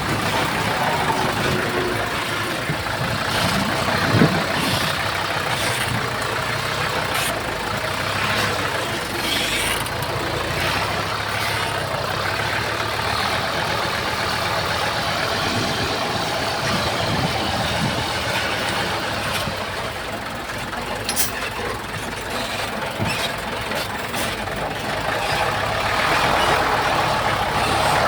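Crawler bulldozer's diesel engine running steadily, with scattered clanks and knocks, the loudest about four seconds in.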